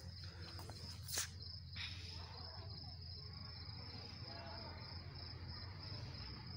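Crickets chirping, a steady high trill throughout over a low, even rumble, with one sharp click about a second in.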